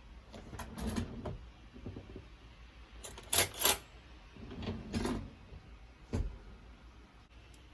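Handling noises in a kitchen: a series of light knocks and clatters, with two sharp clicks close together about three and a half seconds in.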